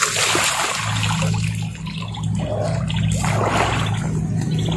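Running water splashing and trickling, with a steady low hum coming in about a second in.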